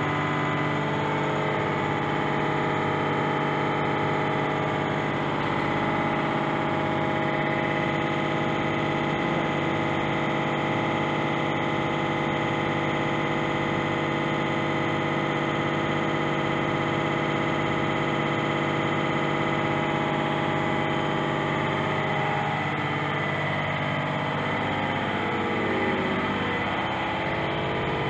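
Universal testing machine running steadily as it pulls a test bar in tension: a constant mechanical hum with several steady tones.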